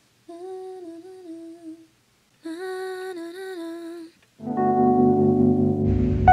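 A woman's voice humming two short melodic phrases, wordless and smooth. From about four and a half seconds in, background music with sustained keyboard chords takes over.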